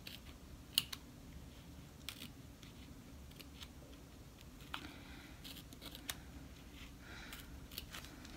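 Appliqué scissors snipping thin glittery canvas vinyl close to the stitching: faint, short snips at irregular intervals.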